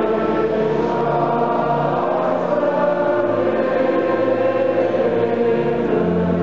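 Many voices singing together in slow, held notes over a low sustained accompaniment.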